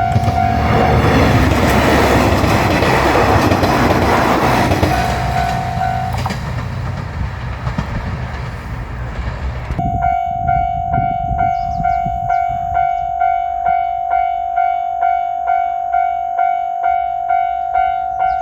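A Japanese level-crossing bell rings at about two strokes a second while a diesel railcar train runs loudly over the crossing. About six seconds in the bell stops and the train's noise fades away. Near ten seconds in the bell starts ringing again.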